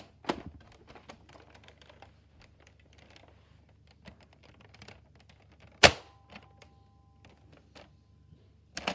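Plastic clicks and rattles of a Nerf blaster being handled and loaded with a marshmallow, with one loud sharp clack about six seconds in.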